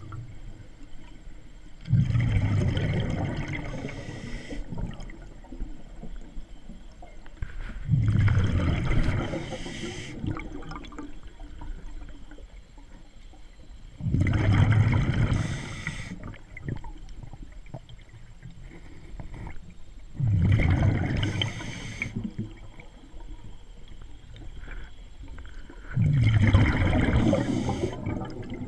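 Scuba diver breathing through a regulator underwater: five exhalations, each a rush of exhaust bubbles lasting about two seconds, coming regularly about every six seconds.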